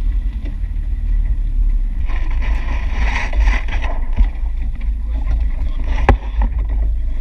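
Steady low rumble of wind buffeting the microphone and the boat running on open ocean swell, with a louder rush of noise from about two to four seconds in and a single sharp knock about six seconds in.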